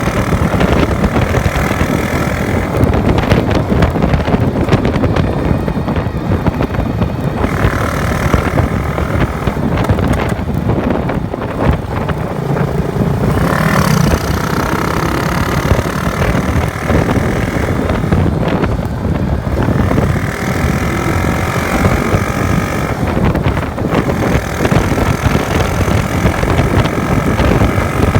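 Heavy wind buffeting the microphone of a motorcycle at highway speed, over the running of a small motorcycle engine under way, with engine tones coming and going.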